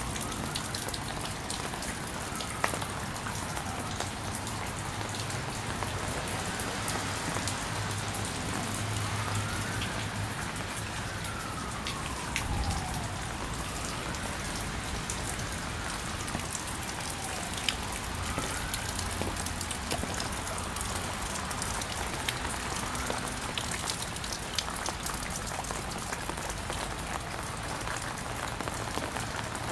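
Steady patter of water drops falling after a hailstorm, with many small ticks of single drops. A faint siren wails slowly up and down several times over it.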